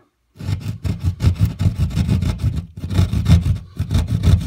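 Hand drywall jab saw cutting through sheetrock in quick back-and-forth rasping strokes, with a brief pause a little past halfway.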